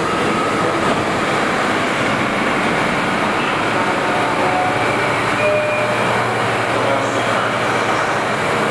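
R179 subway train standing at the platform with its doors open, its running equipment giving a steady hum in an echoing station.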